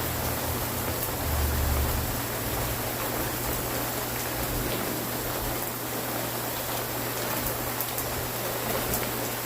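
Steady rain falling: an even, dense hiss with scattered drop ticks. A brief low rumble swells about a second and a half in.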